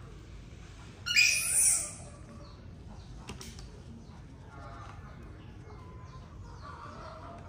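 A baby monkey gives one short, high-pitched squeal about a second in.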